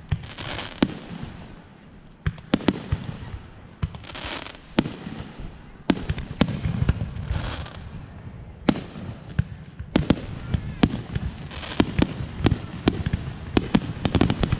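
Aerial firework shells bursting: sharp bangs about a second or two apart, then from about ten seconds in a rapid run of many bangs close together.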